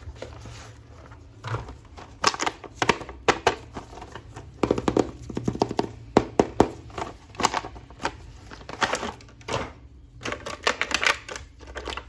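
Hands handling and opening a plastic action-figure package: irregular clusters of sharp clicks and taps of plastic, with short pauses between them.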